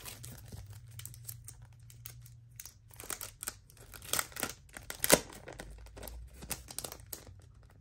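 Clear plastic packaging sleeve crinkling and rustling as a stack of patterned scrapbook paper is handled and slid out of it, in irregular crackles with the sharpest about five seconds in.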